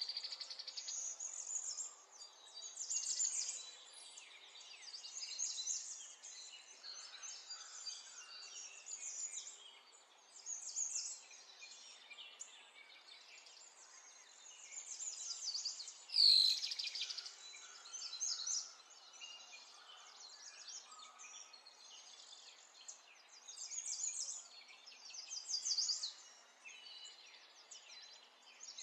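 Several small birds chirping and singing in overlapping short calls and trills. A single louder, sharp sound comes a little past halfway.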